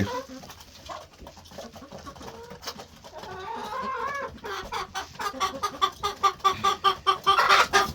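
Hens clucking: repeated short calls that grow louder over the second half.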